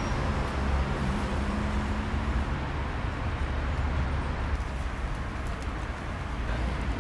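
Steady street traffic noise with a low engine hum running under it.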